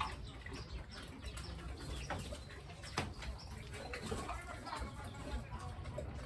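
Chickens clucking steadily, with a sharp tap or knock about halfway through.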